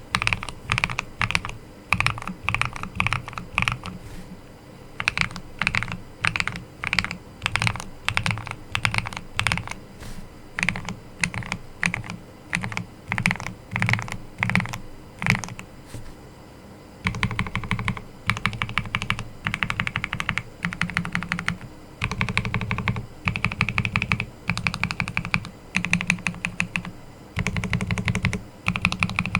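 Typing on a Hello Again M0110 custom mechanical keyboard with Akko Silver POM linear switches. It begins as a steady run of separate keystrokes, then a little past halfway it turns into fast bursts of typing, each about a second long, with short pauses between them.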